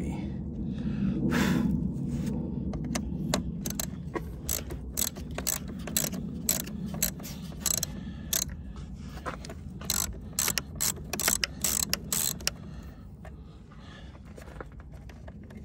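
Socket ratchet clicking in quick, irregular runs as it loosens the negative terminal nut on a car's 12 V battery.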